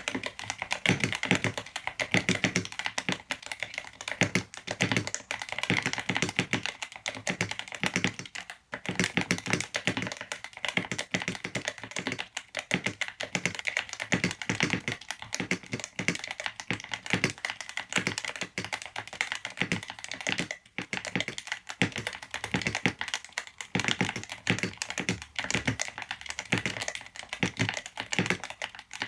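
Typing on a Yunzii C68 68% mechanical keyboard fitted with Yunzii Milk linear switches: a fast, continuous run of key clacks, with two short pauses.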